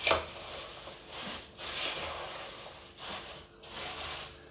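Puffed rice rustling as a hand scoops and tosses it with chopped vegetables and spices in a steel pot, in repeated strokes a little under a second apart.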